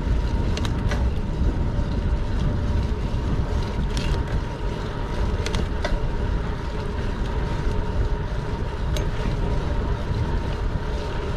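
Steady low rumble of street and wind noise on the microphone while on the move, with a few sharp clicks scattered through it and a faint steady whine.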